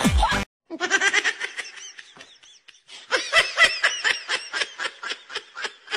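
A person laughing in quick, rapid bursts, after background music cuts off about half a second in.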